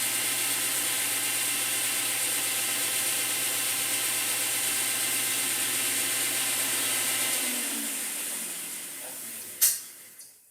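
Milling machine running steadily with a constant hum and hiss, then switched off and spinning down about seven seconds in, followed by a single sharp click near the end.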